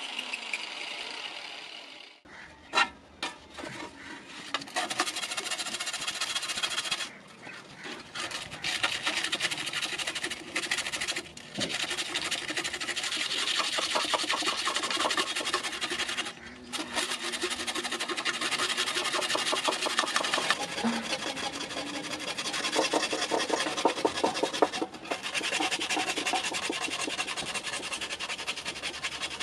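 Hand-scouring the surface of a forged iron thali plate with an abrasive: rapid back-and-forth scratchy rubbing on the metal, with a few short pauses. A few sharp knocks come before the rubbing starts, the loudest about three seconds in.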